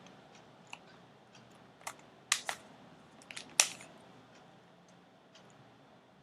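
Rubik's cube being twisted by hand: irregular plastic clicks and clacks as the layers turn, the loudest a little past two seconds and at about three and a half seconds.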